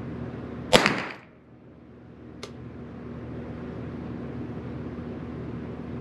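A single .22 LR shot from a Derya TM22 semi-automatic rifle, with a short echo off the walls of a small indoor range. A faint click comes about a second and a half later, over a steady low hum.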